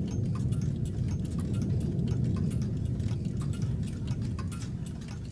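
A steady low rumble with quick, repeated ticks or clicks over it, fading out gradually over the second half.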